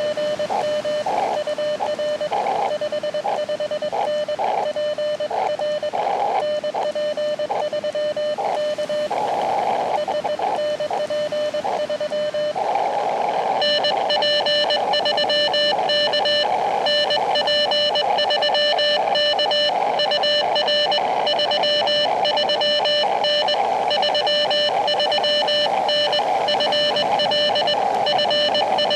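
Morse code (CW) from an Elecraft KX2 transceiver: a single beep tone keyed on and off over the receiver's band hiss. About halfway through, the keying becomes louder and denser, and the tone brighter.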